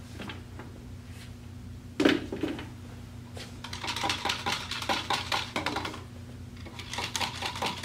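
Metal stirrers clicking and clattering against plastic cups as cold-process soap batter is stirred by hand: one sharper knock about two seconds in, then runs of quick rattling clicks, over a steady low hum.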